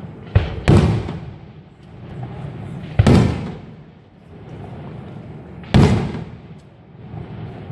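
Aerial firework shells bursting in a display: a quick double bang about a third of a second in, then single booms at about three and nearly six seconds, each followed by a rolling echo.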